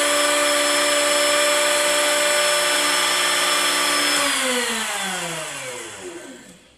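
Handheld electric router running at full speed while routing a groove in thick aluminum plate. It is switched off about four seconds in, and its whine falls in pitch as the motor winds down to a stop.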